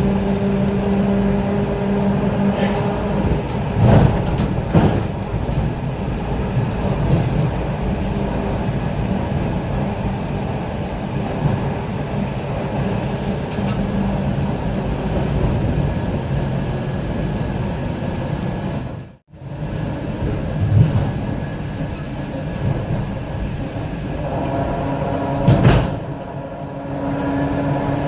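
Steady running noise of the ET2M electric multiple unit under way, heard from inside the car: wheels rumbling on the rails with a constant electrical hum. A few sharp knocks come near the start and again near the end, and the sound cuts out briefly about two-thirds of the way through.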